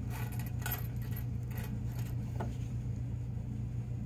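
A few light metallic clinks and rattles in the first couple of seconds, small metal hardware or tools being handled, over a steady low hum.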